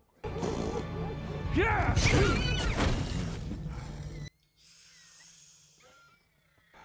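TV drama soundtrack: a loud mix of music and men's shouting voices that cuts off suddenly about four seconds in. A quiet stretch follows with a few faint high chirps.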